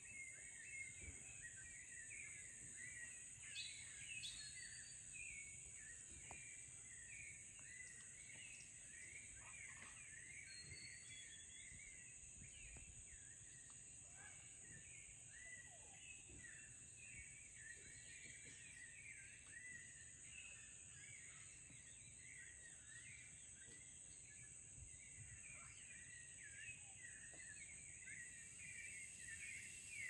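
Faint tropical rainforest ambience: a steady high insect drone with a dense, continuous chorus of short chirping calls from many animals.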